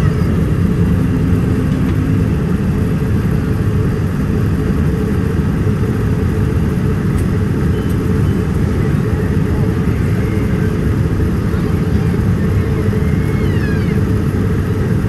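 Steady low rumble of vehicle noise, with a few faint high whistling glides near the end.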